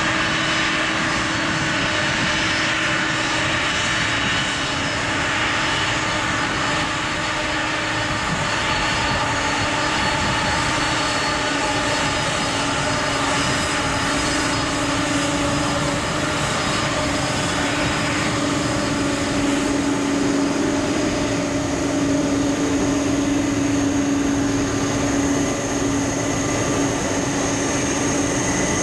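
Boeing 767-300's twin jet engines running at taxi thrust: a steady jet whine over a low hum. The hum grows stronger in the second half as the airliner passes close by.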